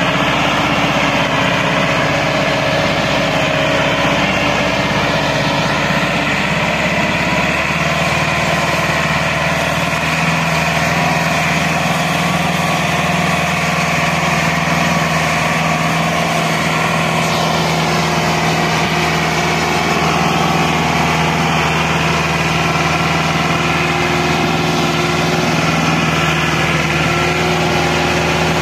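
Massey Ferguson 385 tractor's four-cylinder diesel engine running steadily and loud under heavy load, straining to pull an overloaded sugarcane trolley through loose sand. Its note shifts slightly about eight seconds in.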